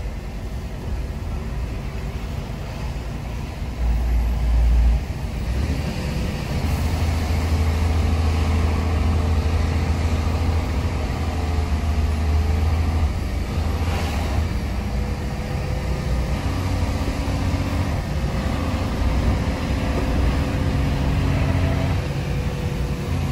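Semi-truck's diesel engine running with road noise, heard from inside the cab while driving. A brief louder low rumble comes about four seconds in, and the engine hum grows stronger from about six seconds in.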